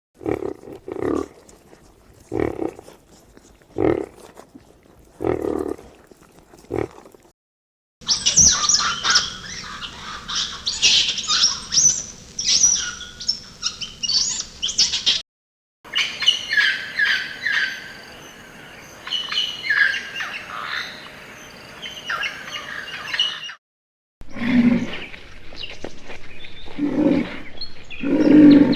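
Several animal recordings joined with hard cuts. First comes a series of short, low calls about one a second. Then two long stretches of dense, high bird chirping and twittering, and near the end a few louder low calls.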